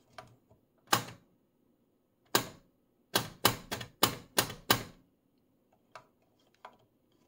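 Front-panel switches of a Radiometer BKF6 distortion meter clicking as they are operated. There is a single click about a second in, another a second and a half later, then a quick run of about seven clicks.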